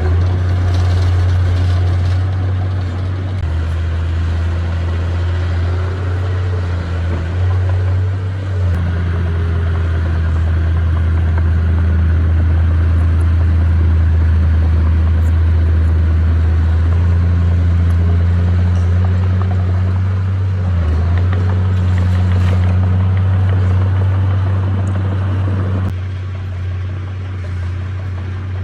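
Heavy diesel engine of an earthmoving machine running under load, a deep steady drone that shifts with the work and eases off near the end.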